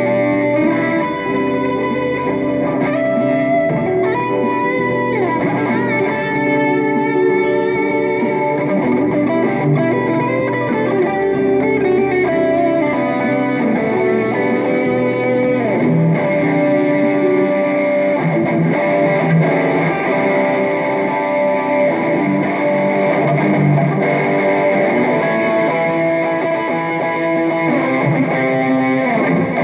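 Stratocaster-style electric guitar played through a Mooer GE200 multi-effects processor and amplifier, picked up off the amp by a phone microphone. A continuous run of notes and chords, with some notes sliding in pitch.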